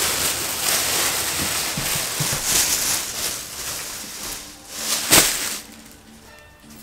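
Plastic shopping bags rustling and crinkling as they are handled, fading after about four seconds, with one sharp, louder crackle a little after five seconds in.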